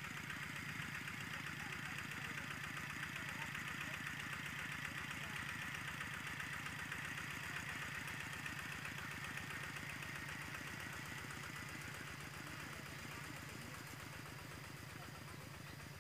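Two-wheel walking tractor's single-cylinder diesel engine chugging steadily while plowing, fading a little toward the end as it moves away.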